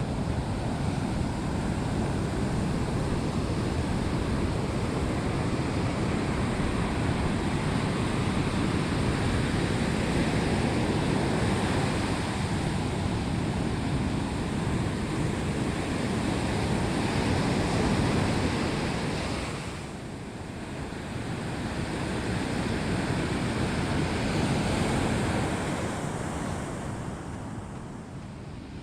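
Ocean surf breaking and washing onto a sandy beach. The rushing wash swells and eases, falling away briefly about two-thirds through and again near the end.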